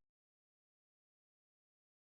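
Complete silence: the sound track drops out entirely, with no room tone.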